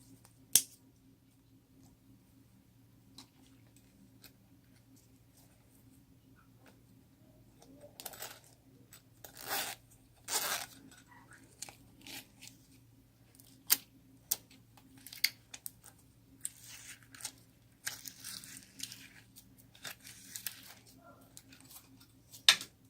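Slime being handled and stretched: short sticky tearing and crackling sounds with a few sharp pops or clicks scattered through, over a faint steady hum.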